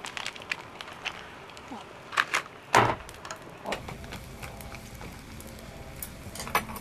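A wood fire under a camp cooking pot: a few sharp knocks and crackles, the loudest a little under three seconds in, and a low steady rumble of flame from a little under four seconds in.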